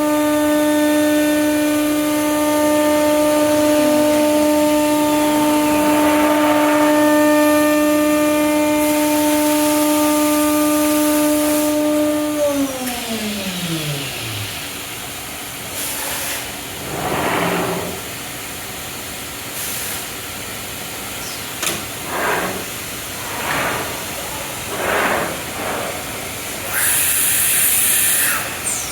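C.R. Onsrud 96C12 CNC router spindle running at speed with a steady high whine, then winding down, its pitch falling until it fades about 14 seconds in. After that come a series of short hisses and whooshes.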